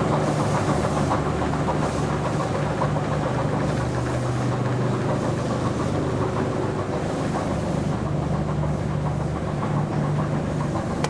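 Steady mechanical drone of running station machinery: a low hum over a rumbling noise, with the hum's pitch dipping slightly midway and then recovering.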